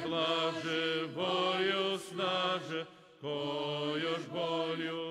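Vocal ensemble singing a Serbian Orthodox spiritual song in slow phrases of held notes, with a short break about three seconds in.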